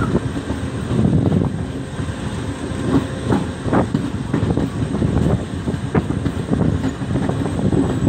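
Passenger train heard from on board while running: a steady rumble of the coach with irregular clacks and knocks from the wheels over the rail joints.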